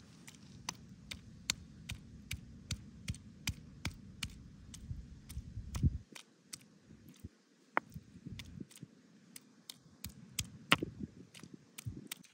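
Knife cutting through vegetables onto a wooden cutting board in steady strokes, about two or three a second, with a low rumble underneath for the first half.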